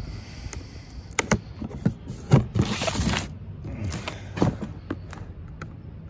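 Cardboard box being cut open with a utility knife and handled: a few sharp knocks on the cardboard, and a longer rasping cut through the packing tape about two and a half seconds in.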